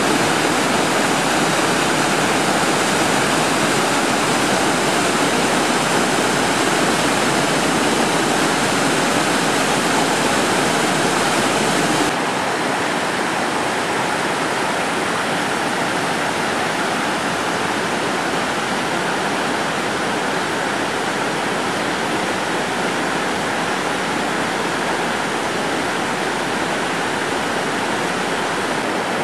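A rocky mountain brook rushing and cascading over boulders in a steady, full rush. About twelve seconds in it steps down a little quieter and less bright.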